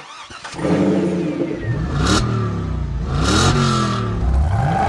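Car engine revving, its pitch rising and falling several times, with two short whooshes about two and three and a half seconds in.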